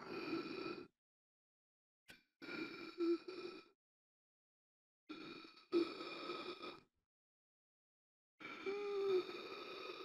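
A person gasping for air: laboured gasping breaths, each lasting one to two seconds, with dead silence between them, coming about every two and a half to three seconds. Some carry a short voiced catch, like a strained groan.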